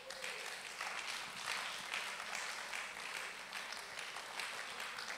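Audience applauding, many hands clapping together in a dense, even patter.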